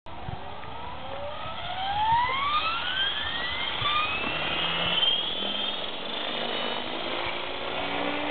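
Align T-Rex 500 electric RC helicopter spooling up on the ground: the whine of its motor and gears rises steeply in pitch over the first five seconds, then holds steady as the rotor comes up to speed.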